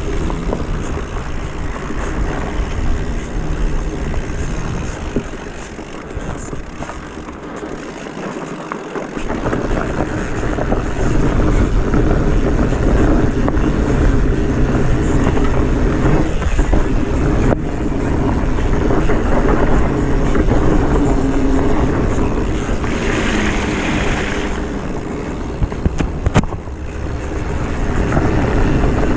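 Engine of an off-road vehicle running steadily while climbing a muddy trail, growing louder about a third of the way in, with a brief rush of noise near the end.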